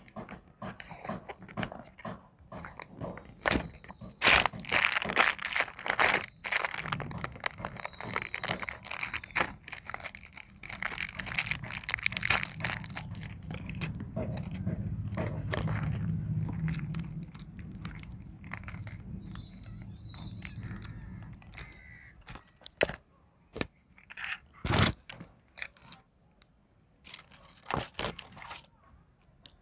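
Paper toy bag and folded leaflet from a Kinder Joy egg being crinkled, unfolded and torn open by hand, a dense run of crackles for the first half. A low hum runs underneath through the middle, and a few sharp clicks of the toy's small plastic parts being handled come near the end.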